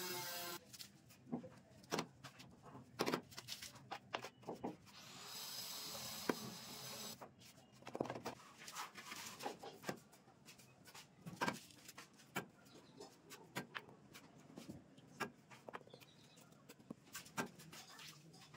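Tiling work on a concrete floor: scattered light taps, knocks and scrapes of tools and materials, with a steady hiss lasting about two seconds around five seconds in.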